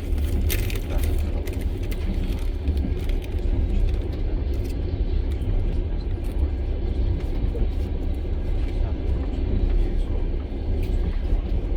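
Passenger train running along the track, heard from inside the carriage: a steady low rumble of wheels on the rails with scattered clicks and rattles, a sharp click about half a second in.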